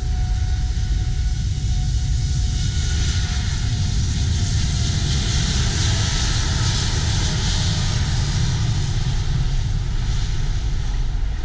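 Jet airliner's engines running at high power as it rolls down the runway: a steady roar with deep rumble, its hiss strongest around the middle.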